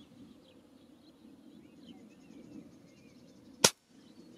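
Reximex Throne Gen2 PCP air rifle firing a single 33-grain slug, one sharp crack about three and a half seconds in. Faint bird chirps before and after it.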